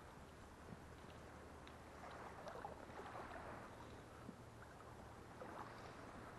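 Faint sloshing of shallow water, a little louder from about two seconds in.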